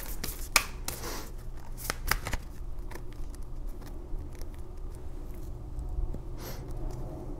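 Deck of cards shuffled by hand: a few sharp card snaps and slides in the first couple of seconds, then quieter handling, over a faint steady low hum.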